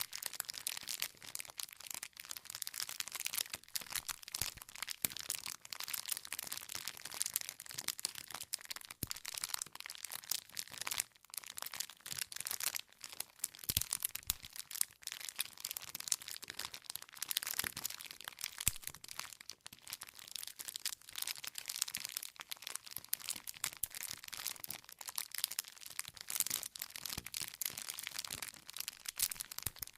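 Wood fire crackling: a dense, irregular stream of small pops and snaps with occasional louder cracks as the burning logs split.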